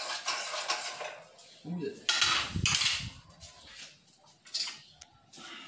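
A utensil scraping and stirring in the pot of an electric rice cooker used as a frying pan, followed about two seconds in by a louder clatter of kitchenware.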